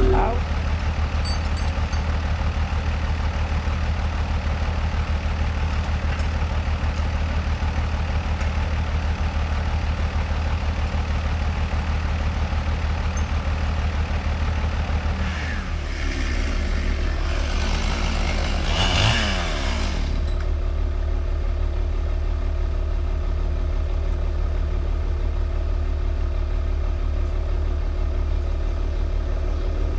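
A large engine of logging machinery running steadily. About halfway through its pitch glides down and up, with a brief louder burst of noise, before it settles back to a steady run.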